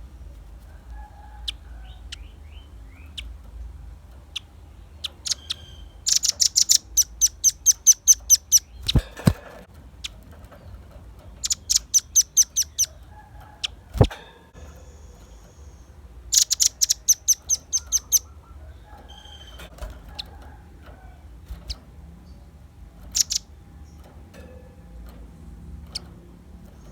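Velvet-fronted nuthatch (rambatan paruh merah) calling: three rapid runs of sharp, high chip notes, each lasting about two seconds, with scattered single chips between them. Two sharp knocks fall between the runs.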